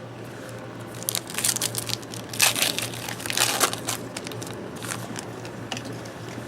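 Foil wrapper of a trading card pack crinkling and crackling as it is torn open and handled, in a string of irregular bursts.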